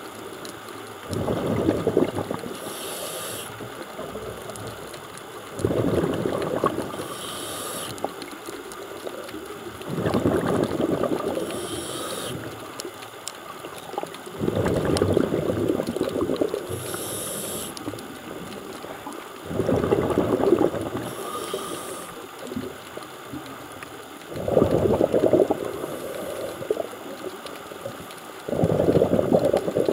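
A scuba diver breathing through a regulator underwater: a short hiss on each inhale, then a longer burst of exhaled bubbles, repeating about every four to five seconds.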